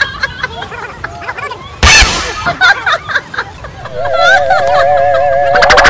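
Dubbed-in comedy sound effects: a sudden loud burst about two seconds in, a few brief voice sounds, then a wavering, warbling tone from about four seconds in.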